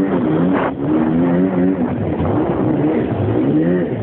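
Jet ski engine revving up and down again and again as the craft is thrown into spins, over the rushing hiss of spray and water.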